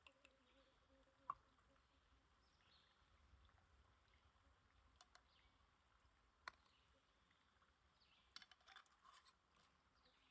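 Near silence, broken by a few faint clicks and taps: a sharp one about a second in, another past the middle, and a short run of small clicks near the end.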